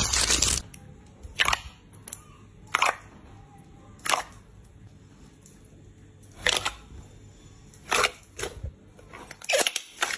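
Crunchy slime crunching as it is squeezed in the hand for about half a second, then a sudden change to clear, glossy jelly-like slime being poked with fingers, giving about eight separate sharp pops spaced a second or so apart.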